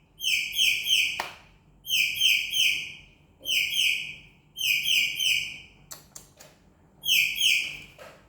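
A bird chirping, three short high notes at a time, with the group repeating at an even pace about every second and a half. A sharp click about a second in and a few fainter clicks near the middle.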